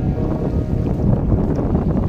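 Wind buffeting the microphone at sea: a loud, steady, low rumbling noise.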